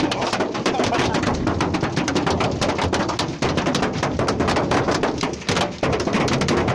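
Storm pelting: a dense, rapid, irregular clatter of sharp impacts over a steady rush of noise.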